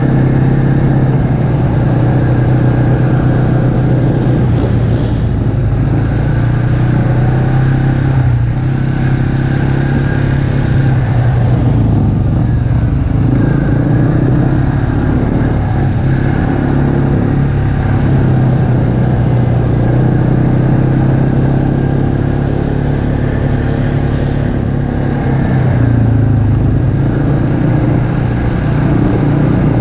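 ATV engine heard on board, running steadily at riding speed, easing off briefly a few times with the throttle before picking back up.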